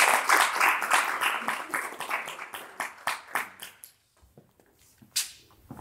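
Small audience applauding a speaker's introduction, the clapping thinning out and dying away about four seconds in. A single sharp tap a second later.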